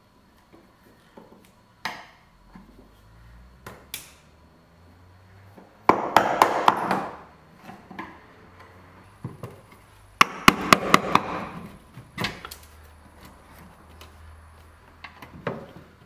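Screwdriver chipping and scraping hard, inflexible factory sealant out of the gap between the body and a front strut top mount. It comes in two bursts of quick sharp taps about six and ten seconds in, with scattered lighter clicks between. The sealant has to come out before the strut can be shifted to set caster and camber.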